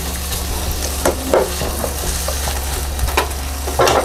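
Minced pork sizzling in a nonstick frying pan as it is stir-fried with a spatula, the little added water cooking off. A few short scrapes of the spatula against the pan break through the steady sizzle.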